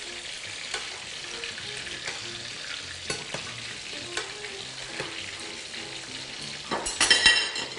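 Breaded eggplant rounds deep-frying in a pan of hot oil: a steady sizzle. Light clicks of metal tongs and a slotted skimmer against the pan come now and then, with a louder metal clatter near the end.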